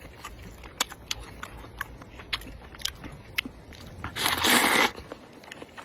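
Close-up eating sounds of spicy noodle soup: wet chewing and lip clicks throughout, with one loud slurp of noodles lasting under a second about four seconds in.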